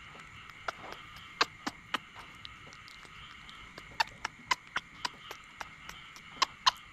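Baby macaque chewing a banana right at the microphone: sharp, wet mouth smacks and clicks at an irregular pace, coming in three clusters.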